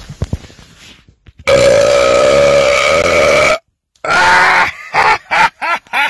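A man's loud belch lasting about two seconds, then a shorter belch about half a second later and a few brief throat sounds near the end.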